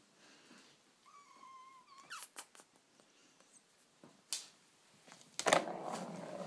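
A British Shorthair kitten gives one short mew about a second in, then the ball in its plastic track toy knocks and clicks a few times as it is batted. Near the end a loud knock is followed by rustling.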